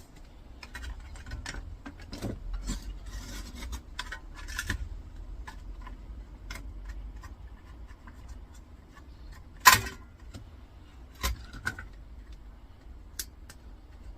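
Small metal parts and a tool being handled as a thin stainless steel cover plate is worked off an old electricity meter: scraping and scattered metal clicks, with one loud sharp clank near ten seconds in and a smaller knock just after.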